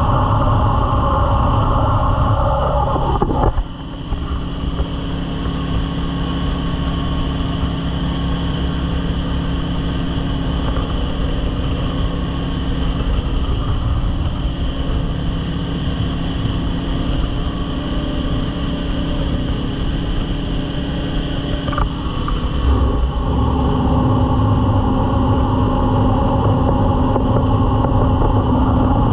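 Jet boat engine running hard, with the rush of water and wind over the open boat. The engine note drops back briefly about three and a half seconds in, then runs steadily and grows stronger again near the end.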